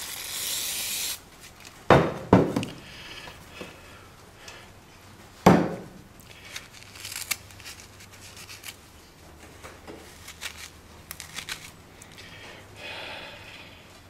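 Aerosol brake cleaner sprayed through its straw into a rusted oil filter canister, a hiss lasting about a second. Then three sharp knocks, the last the loudest, and faint rubbing as the canister is handled.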